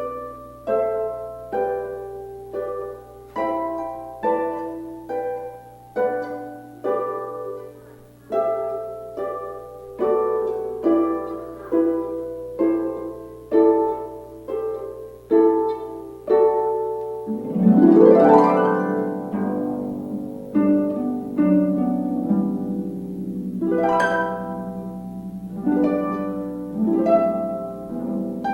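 Harp playing a slow melody of single plucked notes, about two a second. About two-thirds of the way through, an upward glissando sweeps across the strings, and ringing chords follow.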